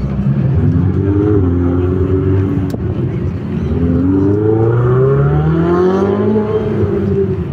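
A sports car engine accelerating hard, its pitch climbing steadily for about three seconds in the second half before levelling off.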